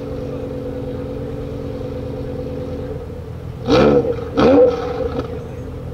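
The BMW M6's 5.0-litre V10, G-Power tuned and breathing through a KKS exhaust, idles steadily. Twice in quick succession, about four seconds in, it is blipped in short sharp revs that rise and fall, then it settles back to idle.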